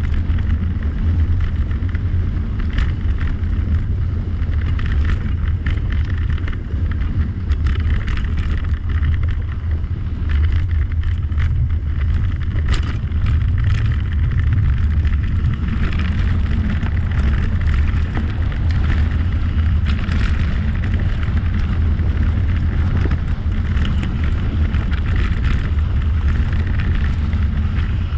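Wind buffeting the microphone of a camera on a moving bicycle, a steady low rumble mixed with rolling tyre and road noise, with a few light clicks or rattles.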